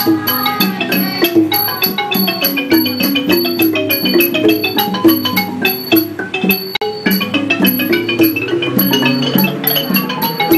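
Thai classical dance music: a fast, busy melody on a mallet xylophone, with evenly spaced high clinks of small hand cymbals keeping time.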